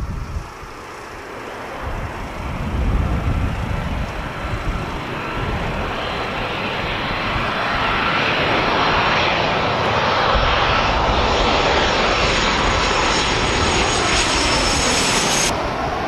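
Boeing 737 on final approach with gear down, its twin CFM56 turbofans growing louder as it closes in and passes low overhead, with a steady whine over the jet noise. The high whine cuts off sharply near the end.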